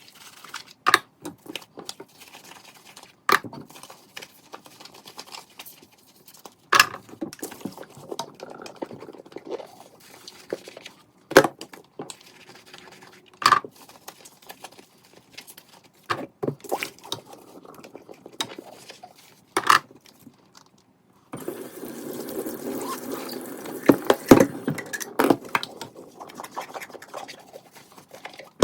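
Dishes and utensils clinking and being set down on kitchen surfaces in sharp, separate knocks. About three quarters of the way through, a tap starts running, with dishes clattering under the water until near the end.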